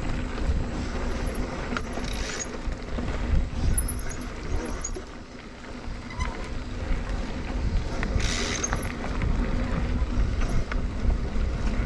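Mountain bike being ridden along a dirt trail: a steady low rumble of riding noise, with two brief louder hisses about two and eight seconds in.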